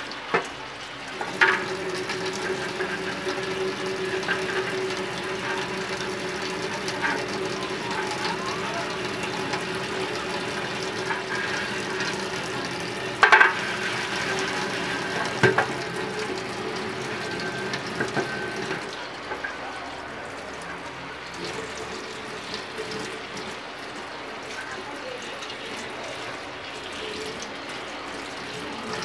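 Tap water running steadily onto a frying pan in a stainless-steel sink while the pan is scrubbed by hand. A few sharp knocks of the pan against the sink come through, the loudest about 13 seconds in.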